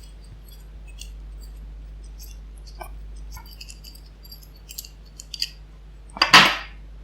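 Small metal clicks and clinks as the cam is taken off a tubular cam lock, then a louder, brief scraping clatter about six seconds in.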